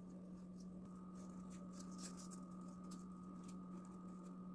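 Faint rustling and small ticks of a tiny paper flower being handled and pressed between the fingers, over a steady hum.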